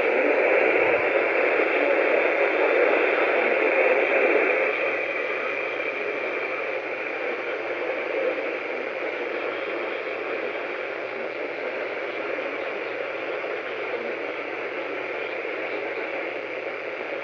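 Steady static hiss from a weather radio receiver with no speech coming through, with a faint low hum underneath. The hiss drops slightly in level about four and a half seconds in.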